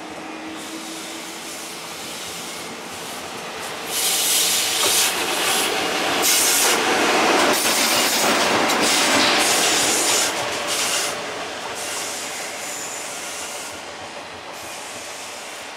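JR Freight EF66 electric locomotive running light, passing close by at low speed: its wheels clatter and hiss over the rails and yard points. The sound swells about four seconds in, stays loudest until about eleven seconds in, then fades away.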